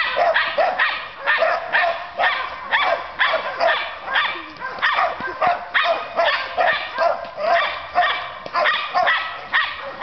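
Beagle barking excitedly in a fast, steady string of high-pitched barks, about two to three a second.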